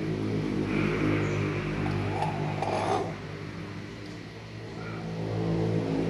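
A motor vehicle engine running steady and low-pitched. Its level swells, dips about three seconds in, and rises again near the end.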